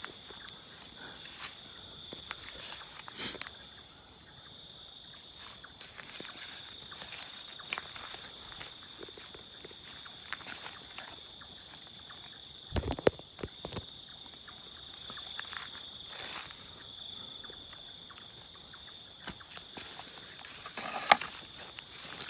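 Steady, high-pitched chorus of insects, with a fine pulsing texture. A couple of low thumps sound about halfway through and a sharp click near the end.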